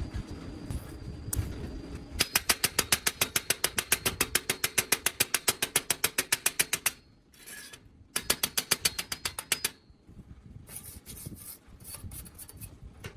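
Rapid even mechanical clicking like a ratchet and pawl, about eight clicks a second, in two runs with a short pause between, followed by a few scattered clicks.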